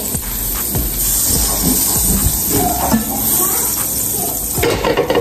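Pancakes sizzling on a hot flat griddle while hot liquid is poured onto it from a small saucepan, with a steady hiss.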